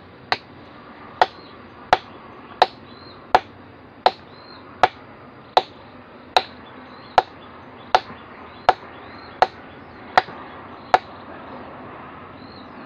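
Hammer blows on a chisel driven into rock, about fifteen evenly paced strikes roughly three-quarters of a second apart, each with a short ring. The strikes stop about two seconds before the end.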